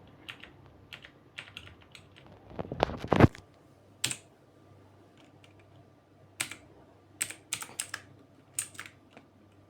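Clicky blue switches on a Torima TK05 mechanical gaming keyboard being pressed a few at a time, each key giving a sharp click, with a louder cluster of clacks about three seconds in.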